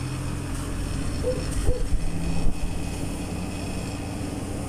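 Steady low engine hum of a fire engine running beside a burning house, with two short sharp pops near the middle.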